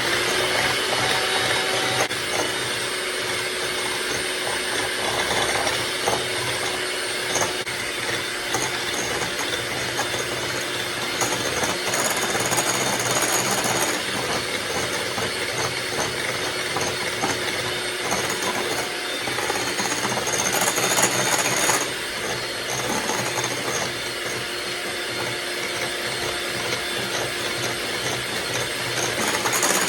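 Electric mixer running steadily, whipping egg whites with lemon juice until they are stiff and fluffy for a sponge cake.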